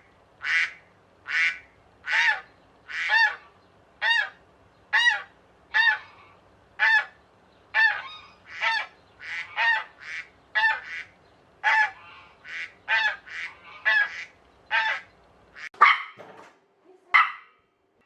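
A squeaky ball toy squeezed over and over, each squeak a honking note that rises then falls in pitch, about one a second at first and then quicker. Near the end the rhythm breaks into a few louder, rougher sounds.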